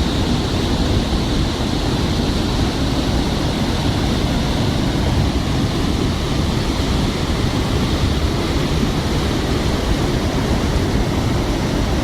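Waterfall on the Tosna River: water pouring down in a loud, steady rush.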